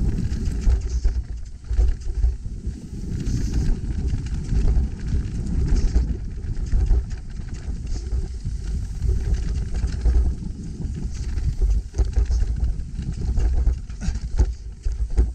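Wind buffeting the microphone, mixed with scattered rattles and knocks from an electric mountain bike riding over a trail; the rumble swells and dips unevenly.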